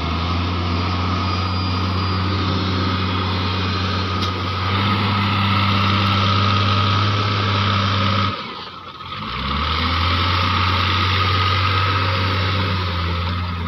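Sonalika farm tractor's diesel engine running steadily as the tractor drives its trailer across the yard. A little past halfway the engine note drops away for about a second, then picks up again.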